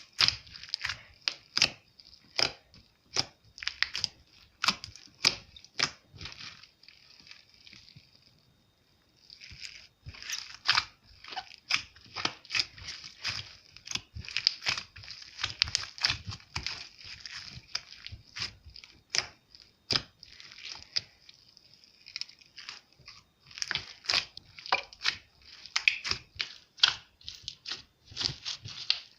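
Slime being squished and stretched by hand, with rapid sticky clicks and pops of trapped air, easing off for a couple of seconds about eight seconds in.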